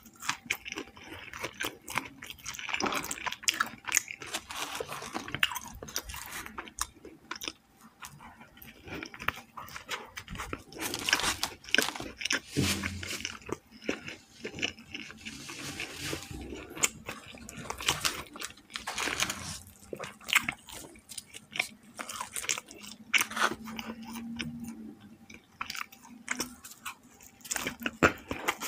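Close-miked eating: biting and chewing fried chicken, with crunching and many irregular wet mouth clicks.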